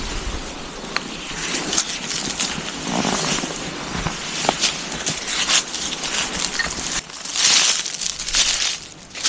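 Footsteps crunching through dry leaves and forest litter, an uneven series of crackling steps.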